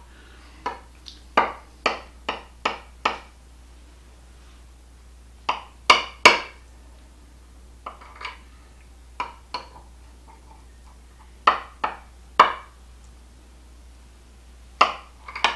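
A kitchen knife clicking against a glass baking dish while slices are cut from a soft layered cake. The sharp taps come in short runs of two to six, with pauses of a second or two between runs.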